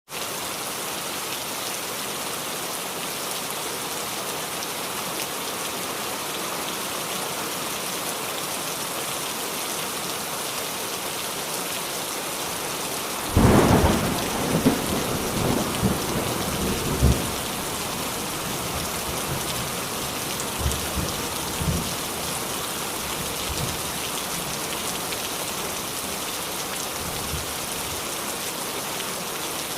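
Heavy rain falling steadily. About halfway through a sudden loud clap of thunder breaks in and rumbles for a few seconds, with fainter rumbles a few seconds later.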